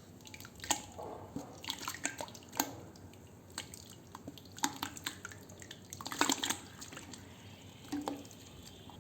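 Wet sand crumbling into water: irregular small plops and drips, busiest around two seconds in and again a little after six seconds.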